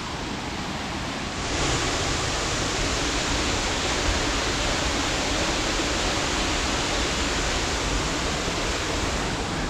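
Waterfall: a steady rush of falling water that gets louder about a second and a half in, then holds.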